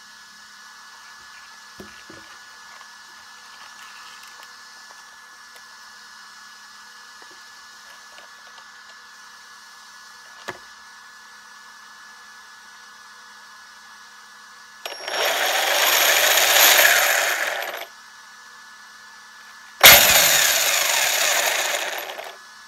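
Twin Tekin 2250KV brushless motors of an Arrma Senton on a 4S pack, spinning the drivetrain through the spur gear on the bench. There are two throttle bursts. The first, about fifteen seconds in, swells and falls away over about three seconds. The second, in reverse about twenty seconds in, starts abruptly and fades over about two and a half seconds.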